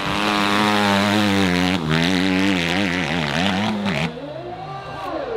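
Dirt bike engine revving hard, its pitch wavering up and down in quick waves as the throttle is worked. About four seconds in it gives way to a quieter engine note that falls and then rises again.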